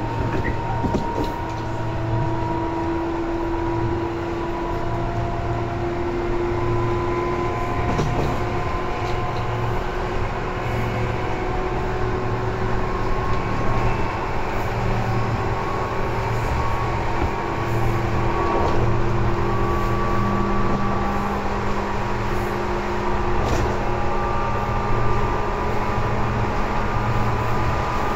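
Tobu 10000 series electric train running, heard from inside the car: a steady rumble of wheels on rail, with motor and gear whine tones that rise slowly in pitch as the train picks up speed, and a few light clicks.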